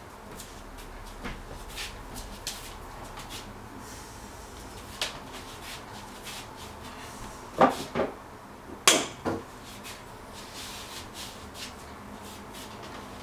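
Someone moving about a kitchen: scattered light knocks and taps, then two loud double knocks about a second apart near the middle, the kind made by handling cupboards and things on the counter.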